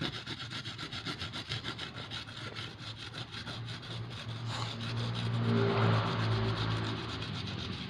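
Kencur (aromatic ginger) rhizome rubbed on a hand grater: quick rhythmic scraping strokes, about five or six a second, fading after four or five seconds. A low steady drone swells in the second half and is loudest about six seconds in.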